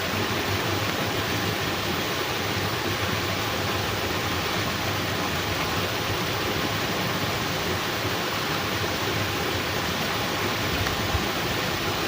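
Steady rush of water: a continuous, even noise.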